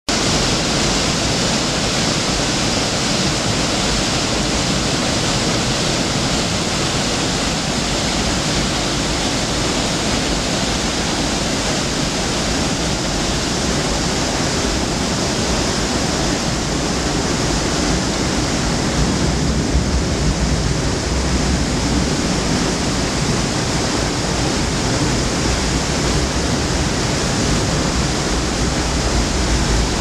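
Waterfall and white-water river at moderate flow, a loud steady rush of falling and churning water.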